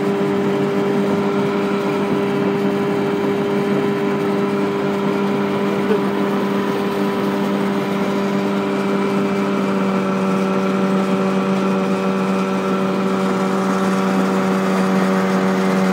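Boat engine running at a constant cruising speed, a steady drone that does not change in pitch, over the rushing hiss of the water.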